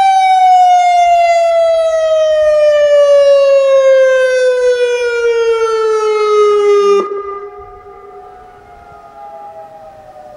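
Federal Signal Modulator 2008 electronic tornado siren sounding its wail tone, the pitch gliding slowly down from its peak. It cuts off abruptly about seven seconds in, leaving a fainter siren farther off still sounding.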